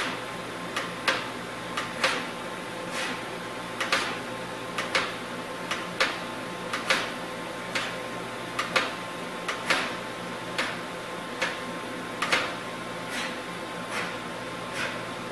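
CNC vertical machining centre stepping its axes from hole to hole under program control: a short whir, sharp at the start and fading, about once a second, over the machine's steady hum.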